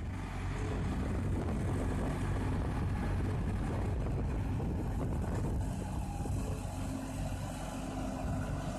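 Engine of a ride-on trencher with a backhoe attachment running at a steady pitch as the machine drives across the yard.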